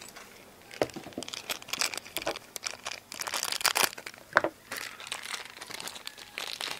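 Plastic packaging crinkling and rustling as it is handled and opened, in irregular crackles.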